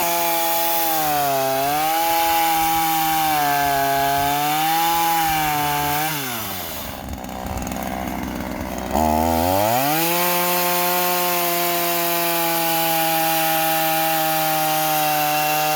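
Small Ryobi gas chainsaw's two-stroke engine running at high revs while cutting wood, its pitch sagging and recovering as the chain bites. About six seconds in it drops back off the throttle, then revs up again about nine seconds in and holds steady.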